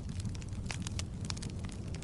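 Wood fire of burning logs in a fireplace, crackling: a steady low rumble of flames with sharp pops and snaps, several each second.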